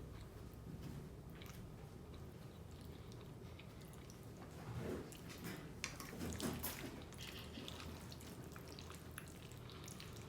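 Wet chewing and mouth sounds of someone eating creamy fettuccine alfredo close to the microphone: soft smacks and small clicks throughout, fuller and louder for a few seconds near the middle.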